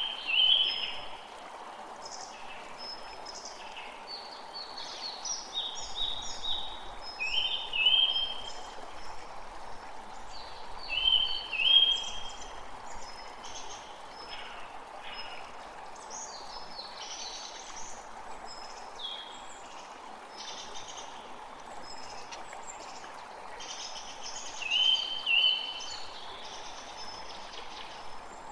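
Several birds chirping and singing in short phrases, with a louder two-part call coming back a few times, over the steady rush of flowing stream water.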